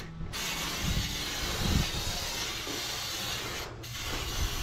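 Aerosol can of canola-oil cooking spray hissing in long steady sprays, breaking off briefly twice, as oil is sprayed onto the steel inside a new smoker to season it.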